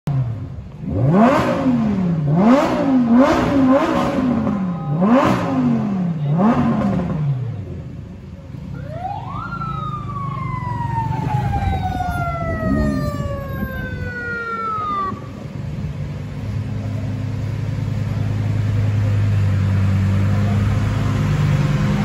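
Lamborghini Huracán V10 revved in about six quick blips, the pitch rising and dropping each time. Then a siren rises sharply and winds slowly down over about six seconds, and the V10 settles into a steady idle that grows louder near the end.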